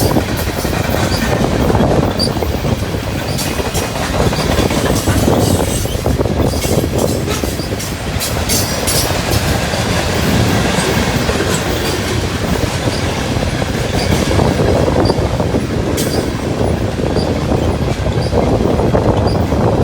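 A train rolling past at close range: a loud, steady rumble of steel wheels on the rails with faint ticks about once a second.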